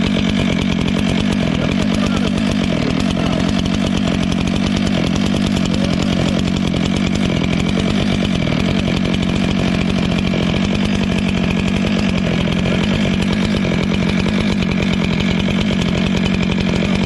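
Stihl two-stroke gasoline chainsaw running steadily with the throttle held open, its engine pitch staying nearly constant.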